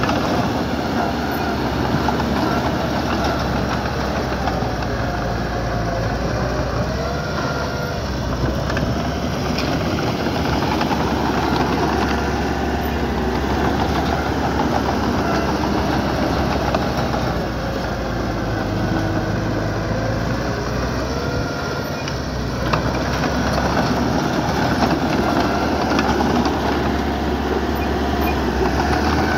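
Diesel engine of heavy earth-moving machinery running steadily, its pitch shifting a little with the load, and easing off briefly past the middle.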